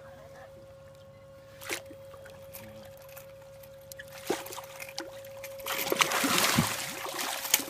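Water splashing and sloshing, starting about three-quarters of the way in and growing loud: a hooked striped bass thrashing at the surface as it is brought to the boat. Before it, only a steady faint hum and one sharp click.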